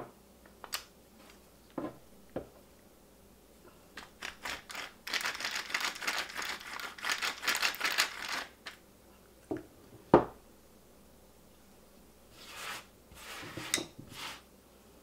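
Hand handling of a Ryobi caulking gun's plastic gear housing and toothed metal plunger rod, clogged with dried caulking: scattered clicks, a dense scratchy rattling for a few seconds in the middle, one sharp knock about ten seconds in, then more scraping.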